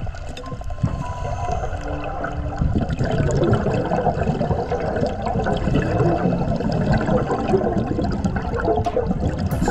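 Scuba regulator exhaust bubbles gurgling underwater. A long, loud stream of bubbles starts about three seconds in after a quieter stretch.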